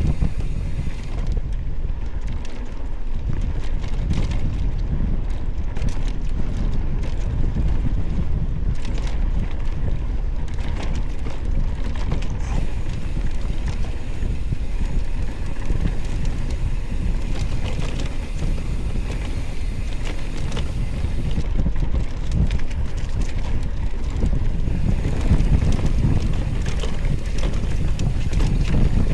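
Wind buffeting the microphone of a rider moving along a trail, a steady rumbling rush, with frequent small knocks and rattles from riding over rough ground.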